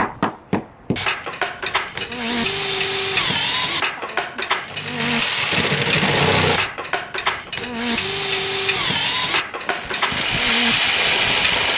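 A power tool working on timber decking boards, run in four bursts of about two seconds each with short pauses between them. A few sharp knocks come in the first second.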